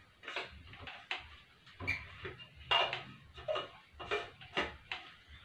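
Lid being screwed onto a stainless-steel thermal travel mug: a run of short, uneven scraping clicks as the threads are turned shut.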